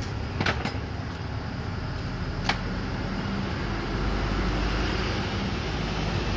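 Steady low rumble of background traffic, with a few sharp clicks from handling the parts of an in-tank electric fuel pump assembly. The sharpest click comes about two and a half seconds in.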